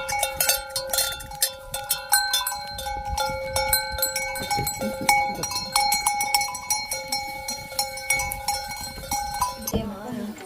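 Metal bells ringing and clanking in quick, irregular strokes, stopping abruptly near the end.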